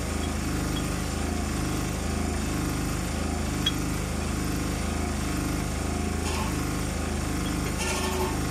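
An engine running at a steady idle, a low even hum with a regular pulse, with a few faint metallic clicks over it.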